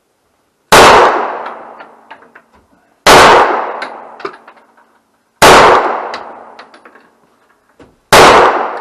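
Canik TP9DA 9mm pistol firing four single shots, spaced evenly about two and a half seconds apart, each shot echoing away.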